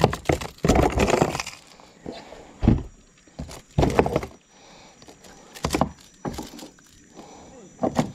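Irregular knocks, thuds and rattles against a plastic kayak's deck, several in a row with gaps between, as a freshly landed fish and fishing tackle are handled on board.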